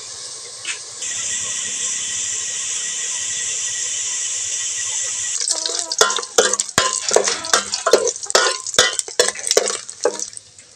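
Pieces of meat sizzling in hot oil in an aluminium pot, a steady hiss that gets louder about a second in. From about halfway, a metal ladle stirs the meat, scraping and knocking against the pot in quick irregular strokes over the sizzle.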